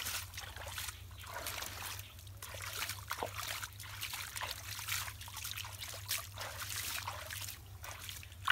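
Hands splashing and scooping through shallow muddy pond water: irregular splashes, with trickling and dripping between them.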